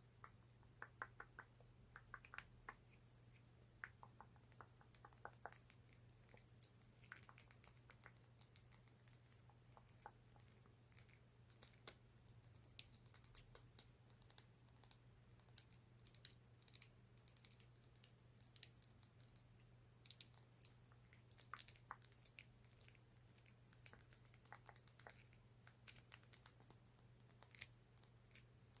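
Faint, irregular quick tapping and clicking on a lip gloss tube and its cap, over a steady low hum.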